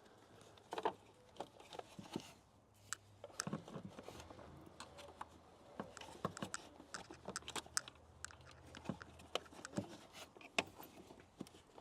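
Faint, irregular small plastic clicks and crackles as a screwdriver pries a connector out of a plastic switch box and the parts are worked loose.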